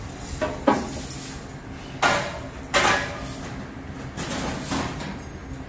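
Metal tools and parts clanking during work under a car: three sharp metallic bangs in the first three seconds, then a couple of lighter knocks, over a steady shop hum.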